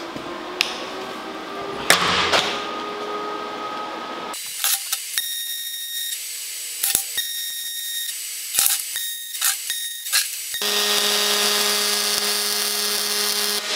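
Electric arc welding on steel. A few knocks of handling come first, then a series of short crackling tack welds, and near the end a longer, steady continuous weld.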